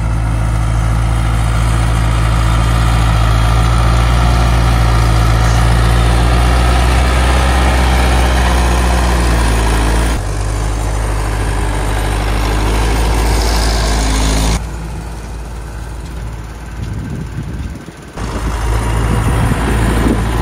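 Ursus 912 tractor's diesel engine running steadily and loudly, easing off about fourteen seconds in and picking up again a few seconds later.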